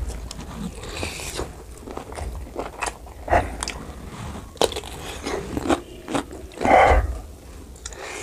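Close-up eating sounds of a man biting and chewing pork curry meat and a raw cucumber slice, with many short wet mouth clicks and a few louder bites, the loudest near the end.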